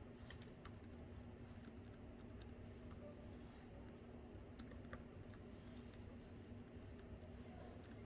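Faint typing on a laptop keyboard: soft keystrokes at an irregular pace, over a steady low hum.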